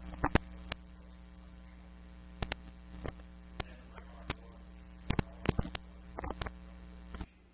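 Steady electrical mains hum with scattered light clicks and taps. The hum cuts off abruptly near the end.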